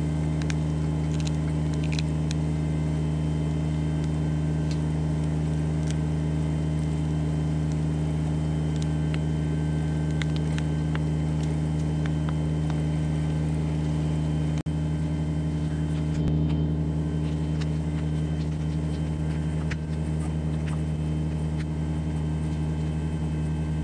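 John Deere 755 compact tractor's three-cylinder diesel engine running steadily while it pulls a stump out with a log winch, with faint scattered clicks over it. The sound drops out for an instant about fifteen seconds in.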